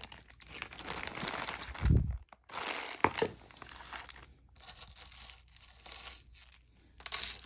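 Plastic bag crinkling and rustling as a necklace is handled and taken out, with a dull thump about two seconds in and a sharp click about a second later.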